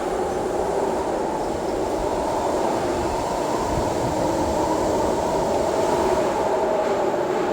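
Storm wind sound effect: a steady, loud rush of wind with a faint wavering tone running through it.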